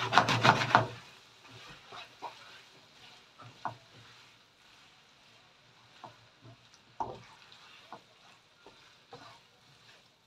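Wooden spoon and spatula stirring and tossing creamy tagliatelle in a frying pan. A loud quick run of strokes against the pan comes in the first second, then scattered softer knocks and scrapes.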